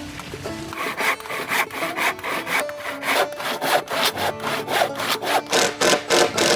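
Hand saw cutting through a wooden board in steady back-and-forth strokes, about three a second, starting about a second in, over background music.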